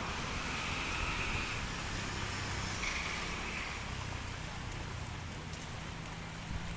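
Light drizzle falling, with the steady hiss of wet-road traffic in the background and two faint, brief high-pitched sounds in the first few seconds.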